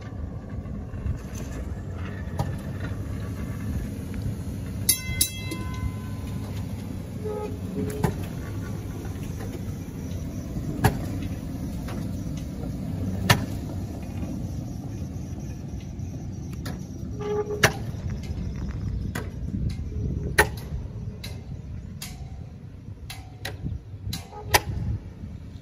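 PCC electric streetcar rolling past on curving track with a steady low rumble. Sharp clacks come as its wheels cross rail joints and switches, with a brief high ringing tone about five seconds in.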